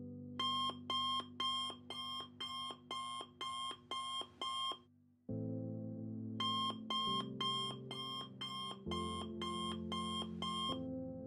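Electronic alarm beeping: two runs of quick, evenly spaced beeps, about two or three a second, with a pause of about a second and a half between them, stopping near the end. Soft sustained background music chords play underneath.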